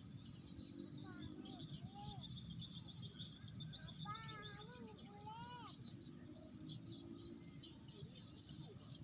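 Field crickets and insects chirping in a steady, rapid high pulse. A few short pitched calls rise and fall over it, once about a second in and again from about four to six seconds in.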